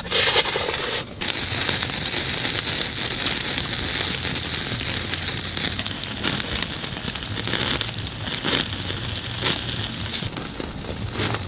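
Large octopus cooking over an open fire, sizzling and crackling steadily with many small pops. A brief, louder sound comes at the very start, before the sizzling sets in about a second in.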